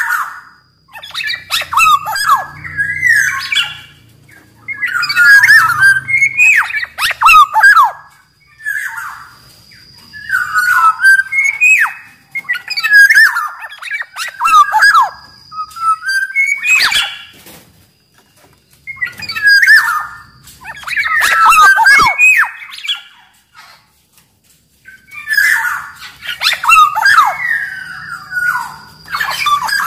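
Black-naped oriole (kepodang) singing: phrases of rapid, varied notes, each a second or two long, repeated with short pauses between them.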